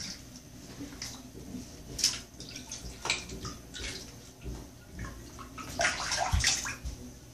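Water splashing and sloshing in a bathtub while a small wet dog is rinsed, in irregular short bursts, loudest about six seconds in.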